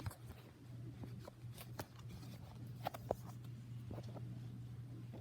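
Handling noise: scattered light clicks and taps of objects being moved and set down, two sharper clicks about three seconds in, over a steady low hum.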